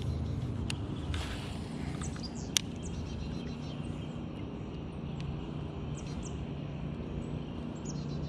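Outdoor pond ambience: small birds chirping in short high notes over a steady low background rumble, with one sharp click about two and a half seconds in.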